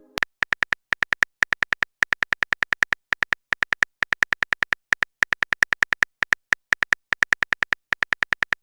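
Chat-app keyboard typing sound effect: a long run of short, identical high electronic clicks, about six to eight a second, in runs broken by brief pauses.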